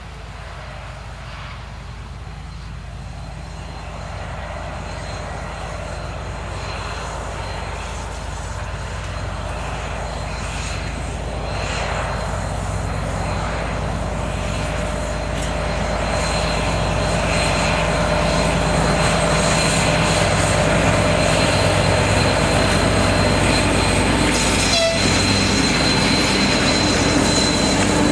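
PKP Cargo ST44 diesel locomotive (a Soviet-built M62-type with a two-stroke V12 diesel) running with its freight train. It approaches and grows steadily louder as the engine's low rumble builds.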